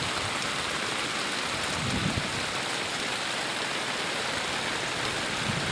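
Strong wind at the onset of bad weather, a steady rushing hiss with no let-up.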